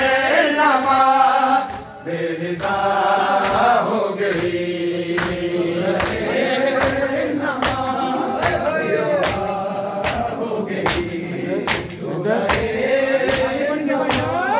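Men's voices chanting a noha, a Shia lament, in unison, with a steady beat of sharp chest-beating slaps (matam) from the mourners, about every three-quarters of a second.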